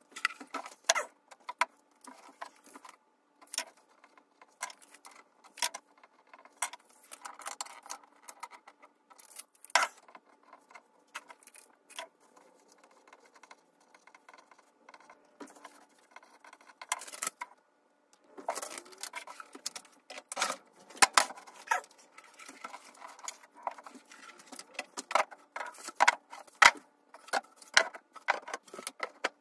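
Irregular sharp clicks and light taps of small hard objects being handled, sparse at first and coming thicker and faster from about two-thirds of the way in.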